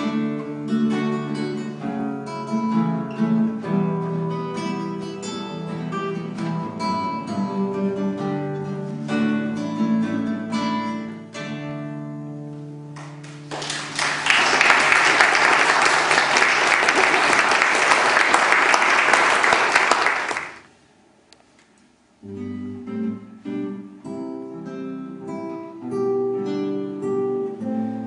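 Two classical guitars playing a duet, plucked notes, until about halfway, followed by about seven seconds of audience applause, louder than the music. After a brief silence, two classical guitars start playing again.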